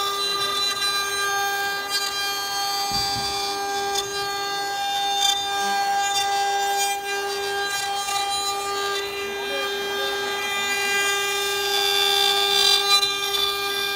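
Multi-spindle CNC wood router with rotary axes carving wooden columns: the spindles give a steady high whine with a string of overtones over the scratchy noise of the bits cutting wood. The cutting noise grows louder near the end.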